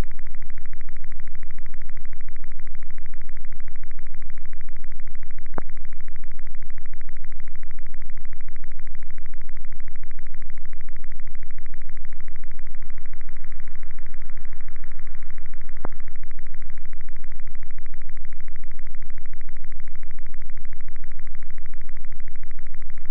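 A loud, steady low buzz with a rapid pulsing grain, like electrical interference, the recorded buzzing sound made into music. Two short sharp clicks cut through it, about five and sixteen seconds in.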